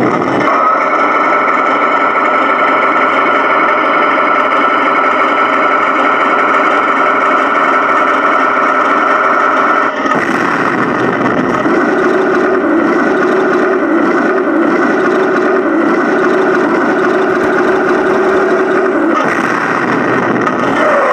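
Simulated engine idle from a 1/16-scale RC tank's electronic sound unit, heard close up from a camera on the tank: a steady engine-like drone with held tones, changing abruptly about ten seconds in.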